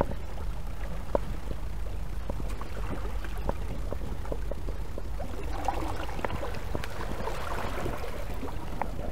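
Sea water washing and trickling among weed-covered rocks at the shoreline as the tide comes in, with a steady low rumble beneath and small scattered ticks and splashes.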